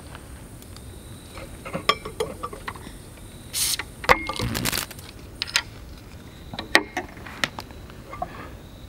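Glass beer bottle and pint glass being handled on a table: scattered light knocks and clicks, with ringing glass clinks about four seconds in and again near seven seconds. A brief hiss comes just before the first clink.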